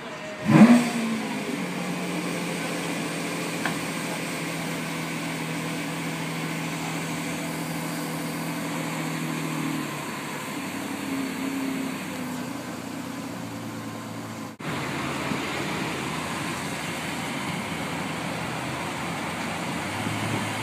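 Lamborghini Aventador's V12 starting up with a loud rev flare about half a second in, then settling into a steady idle. The engine keeps running after a brief break in the sound about two thirds of the way through.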